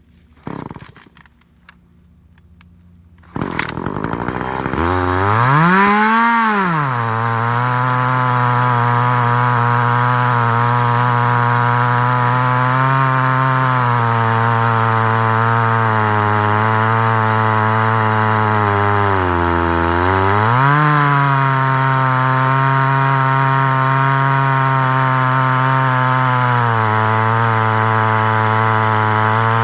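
Two-stroke chainsaw on a chainsaw mill starting up about three seconds in, revving up and back, then running steadily at high speed while sawing through wood. The engine note dips briefly once near the middle and recovers.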